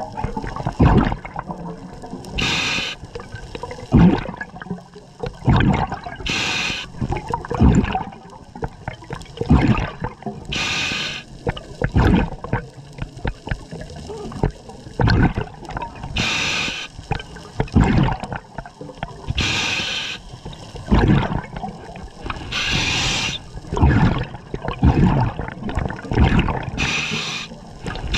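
Scuba diver breathing through a regulator underwater: a hiss of air drawn in on each breath, then a burble of exhaled bubbles, repeating about every four seconds.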